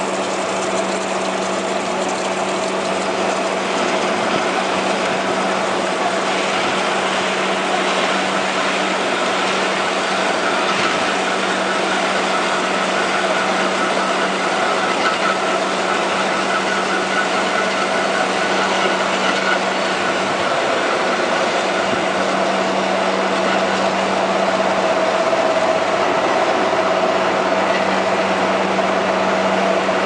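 Horizontal band saw cutting a clamped bundle of round metal bars: a steady mechanical drone with a constant low hum and a higher whine.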